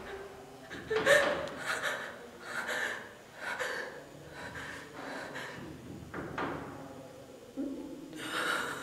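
A young woman crying: gasping, sobbing breaths about once a second, with a few short whimpers, the loudest sob about a second in.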